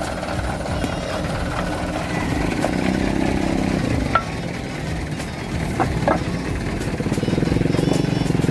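Diesel truck engine idling steadily, growing louder near the end, with a few sharp clinks about halfway through.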